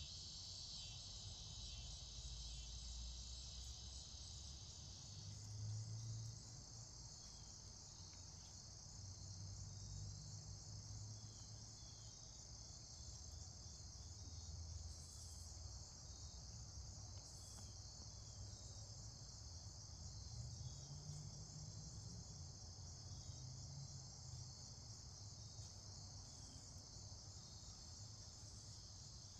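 Faint steady chorus of crickets and other insects trilling, with a lower-pitched trill that drops out about five seconds in, over a soft low rumble that comes and goes.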